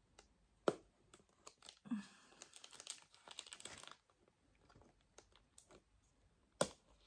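Plastic wrap and tape crinkling and tearing on a cardboard box being picked open by hand, with scattered small clicks and taps. Two louder clicks stand out, one about a second in and one near the end.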